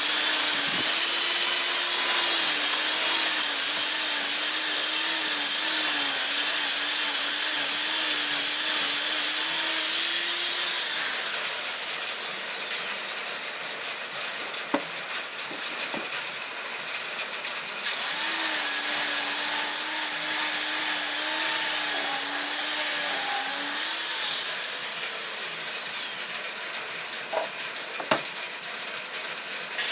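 Handheld electric power tool running on the wooden sofa frame with a steady high-pitched whine. It is switched off and coasts down about a third of the way in, starts up again a little past halfway, runs down again, and starts once more at the very end. In the quieter pauses between runs there are a few sharp knocks of wood being handled.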